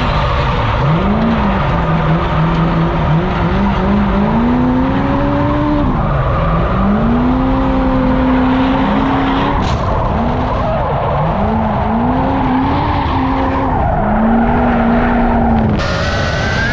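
Drift car engine revving up and down in repeated surges while the tires screech and slide. The sound changes abruptly near the end.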